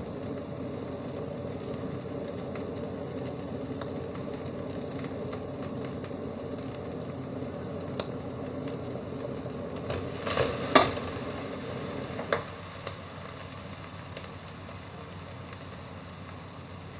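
Food frying in a metal wok with a steady sizzle. About ten seconds in comes a short run of sharp scrapes and knocks as the metal spatula stirs it against the pan, and after that the frying sound is a little quieter.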